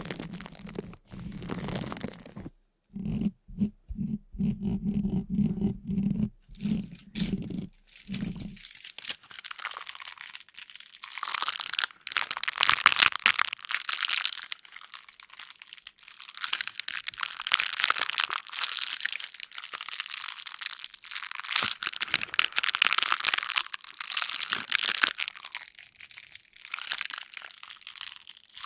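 Crisp crunching and crackling, broken by several abrupt cuts in the first eight seconds, then a denser, brighter crackle for the rest.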